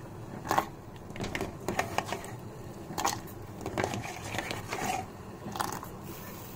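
Cubes of yellow cucumber dropped by hand into a steel pot of hot water: a string of irregular splashes and knocks, about eight over several seconds, as pieces hit the water and the pot.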